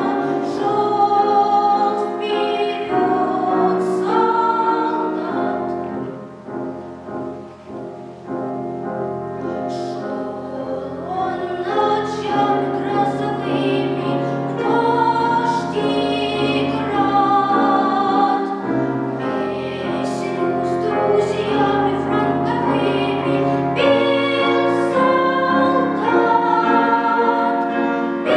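A child singing a classical art song in trained academic style with vibrato, over piano accompaniment. The music softens about six seconds in and builds up again after.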